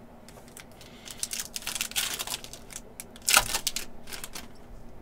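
Foil trading-card pack wrapper crinkling as it is handled and torn open, in a run of crackling rustles with the loudest rip about three and a half seconds in.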